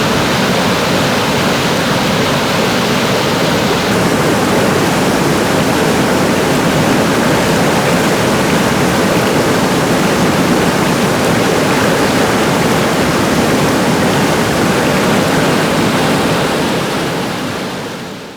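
Steady, loud rush of flowing water, as from a waterfall or fast river, fading out near the end.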